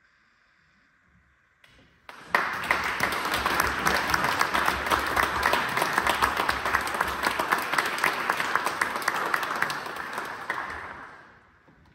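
Audience applauding: after about two seconds of near quiet, a crowd's clapping starts suddenly, holds steady and then dies away near the end.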